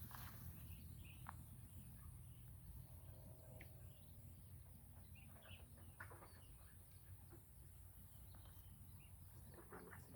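Near silence: faint outdoor ambience with a few distant, scattered bird calls.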